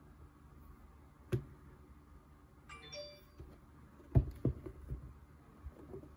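Large stiff art prints handled over a boxed book: a sharp click about a second in, then a run of dull knocks and taps as one print is put aside and the next lifted. Between them comes a brief high ringing tone.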